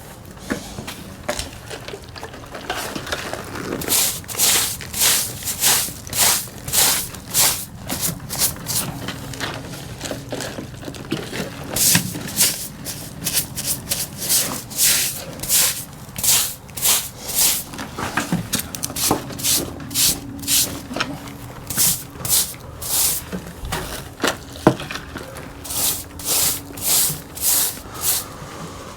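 Stiff brush scrubbing debris out of a widened crack in a concrete foundation wall, in runs of quick strokes about two a second.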